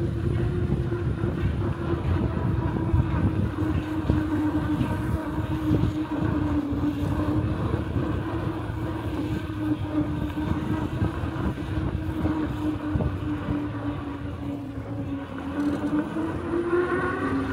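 E-bike's electric motor whining at a steady pitch under way, with wind buffeting the microphone. Near the end the whine rises in pitch as the bike speeds up.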